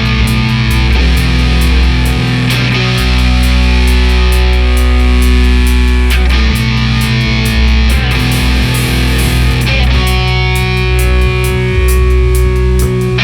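Loud hard rock with no singing: distorted electric guitar chords over a heavy low bass line, with drums and cymbals keeping a steady beat.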